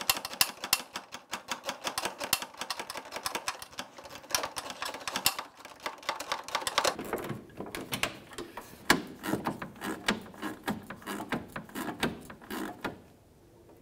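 Hand socket ratchet clicking as it snugs up the headlight assembly's lower mounting bolts: quick runs of clicks for about the first five seconds, then slower, sparser clicks that stop shortly before the end.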